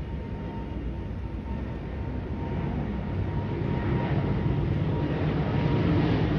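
An airplane's engine rumble, a steady noisy roar that grows gradually louder as the aircraft approaches.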